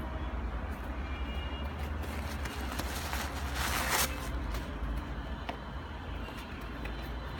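Handling noise from a knit sneaker being turned over in the hand: soft brushing and rustling, loudest in a brief burst about three and a half seconds in, over a steady low rumble.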